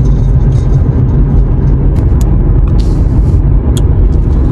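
Steady road and engine rumble inside a moving car's cabin. A few faint clicks and a short hiss sound over it midway.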